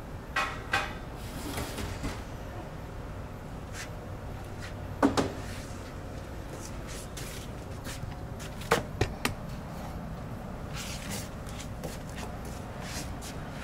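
Knocks and clatter of kitchen handling over a steady background noise: two knocks near the start, the loudest, a double knock, about five seconds in, and three quick knocks around nine seconds, with brief scraping between.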